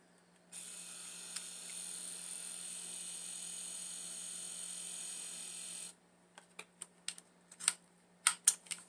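Dymo electronic label maker printing a label: a steady whir of the motor feeding the tape out, starting about half a second in and stopping abruptly after about five seconds. A few short, sharp clicks follow near the end.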